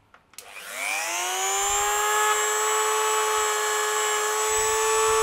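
Handheld rotary tool polishing a small brass model-train part. The motor spins up about half a second in, its pitch rising for about a second, then runs at a steady high whine.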